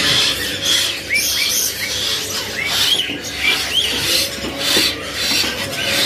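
Caged birds calling: a string of short, rising chirps at irregular spacing over a steady raspy chatter.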